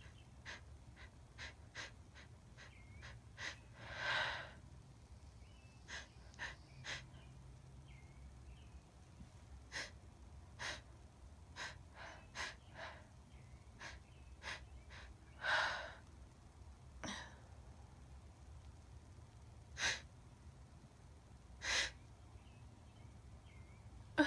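A woman sneezing several times, the loudest sneezes about 4 and 15 seconds in, with many short, sharp breaths between them.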